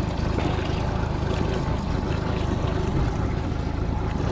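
Honda outboard motor running steadily at trolling speed, with water rushing along the boat's hull.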